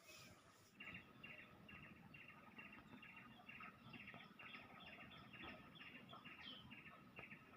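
Faint, evenly repeated short high chirps from a small animal, about two or three a second, starting just under a second in.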